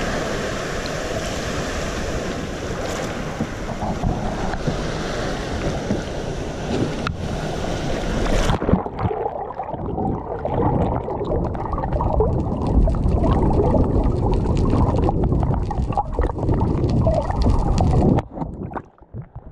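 Sea water splashing around an action camera, with wind on its microphone; about eight and a half seconds in the camera goes under the surface and the sound suddenly turns muffled: low underwater sloshing and bubbling.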